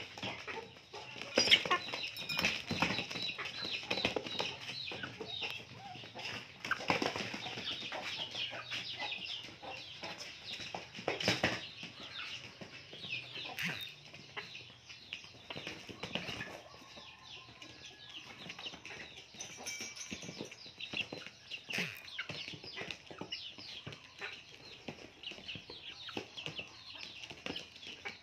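Chickens clucking, with many short, high chirps throughout and frequent sharp taps and knocks.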